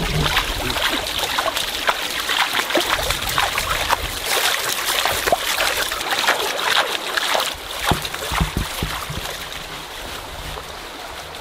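Water splashing and sloshing as someone wades through a shallow, rocky river, legs and hands churning the water. After about eight seconds the splashing eases into a softer running-water sound.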